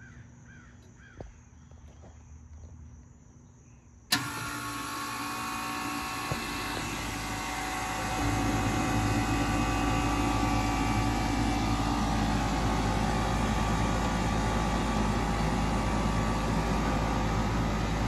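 A 1989 Carrier TECH2000 three-phase, 4-ton central air conditioner condensing unit starting up: a sharp click about four seconds in, then a steady hum with whining tones that steps up louder about four seconds later and keeps running.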